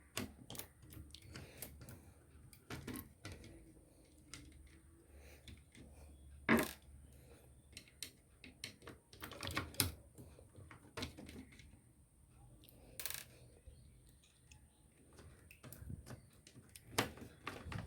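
Scattered clicks, taps and light clatter of hand tools and small hard parts being handled while a mini tower speaker is taken apart, with sharper clicks about six and a half, ten, thirteen and seventeen seconds in.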